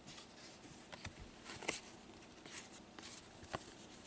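Trading cards being handled and flipped through by hand: soft sliding swishes with a few light clicks, the sharpest about a second and a half in and again near three and a half seconds.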